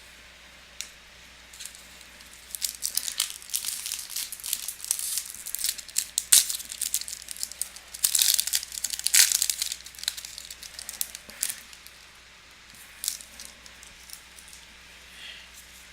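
Trading-card pack wrapper crinkling and tearing as it is opened by hand: irregular crackling in bunches, with a sharp snap about six seconds in, then quieter rustling.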